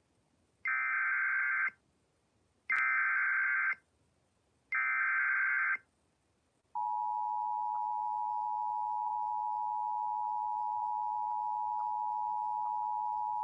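Emergency Alert System SAME header: three one-second bursts of warbling data tones, then the EAS two-tone attention signal (853 and 960 Hz together) starts about seven seconds in and holds steady. The sequence announces a severe thunderstorm warning.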